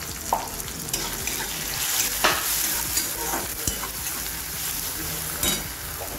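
Onions, tomatoes and ground spices sizzling steadily as they fry in oil in a kadai, while a steel spatula stirs them, scraping and knocking against the pan in irregular strokes.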